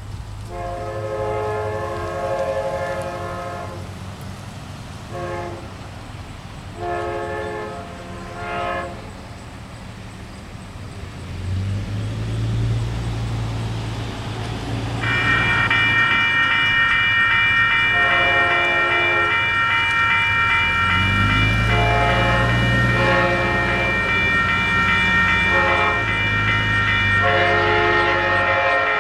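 Nathan K5LA five-chime horn on an Amtrak GE P42DC diesel locomotive played as a horn show: a blast of about three seconds, a run of short toots, then more blasts of varying length as the train comes by. The locomotive's diesel drone builds about halfway through, and the passing train adds a loud, steady high-pitched ring.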